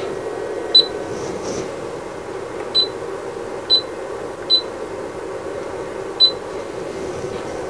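Siglent SDS1204X-E oscilloscope's key beep sounding five times at irregular intervals, a short high electronic beep of the same pitch each time a front-panel button is pressed, over a steady low hum.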